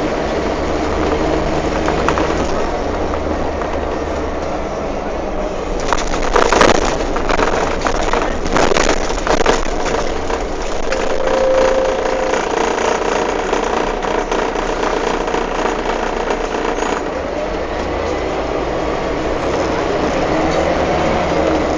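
Inside a moving Scania K310 city bus: the engine and road noise run steadily, with the body and windows rattling and a burst of loud clattering about six seconds in that lasts a few seconds.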